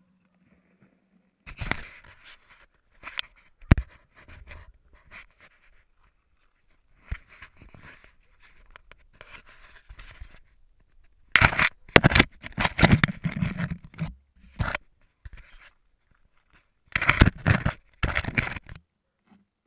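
Handling noise on the camera's microphone: fingers scraping, rubbing and knocking on the camera body in irregular bursts, with a few sharp knocks. The loudest bursts come about halfway through and near the end.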